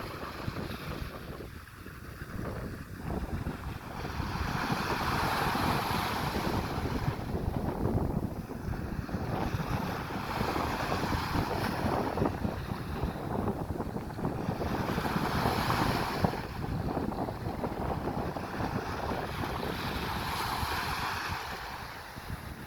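Sea waves breaking on the shore, the wash swelling and fading about every five seconds, with wind buffeting the microphone in a steady low rumble.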